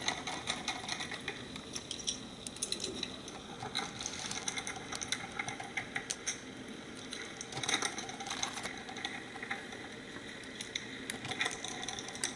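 Sped-up sound of a screwdriver driving the gearbox cover screws into a KitchenAid stand mixer's metal gear housing: a quick, busy run of small clicks, taps and scrapes of metal tool on metal.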